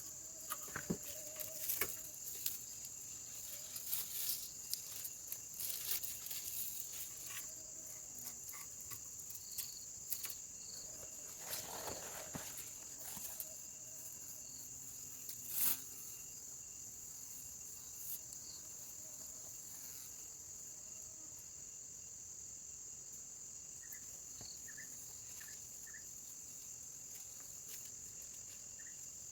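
Steady, high-pitched insect chirring, typical of crickets, with scattered clicks and taps through the first half and one sharper click about 16 seconds in.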